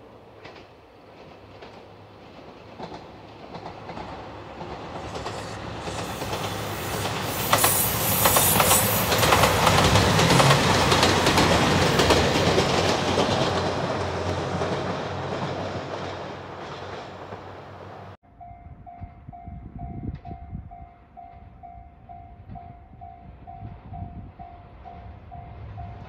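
A JR 2700-series diesel limited express train passes, its engines and wheels on the rails swelling to a peak and then fading away. After a sudden cut, a Japanese level-crossing alarm dings steadily over quieter traffic-like background noise.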